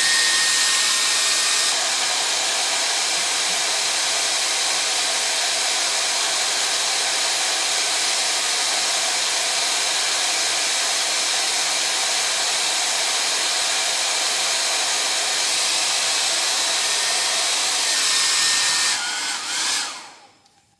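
Hair dryer running on its high setting, a loud, steady rush of blowing air; it is switched off near the end and winds down quickly.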